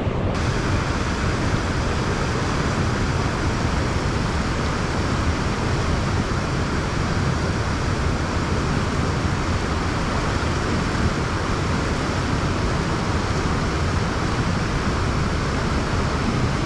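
Steady, even rushing of fast, broken river water, heaviest in the low end.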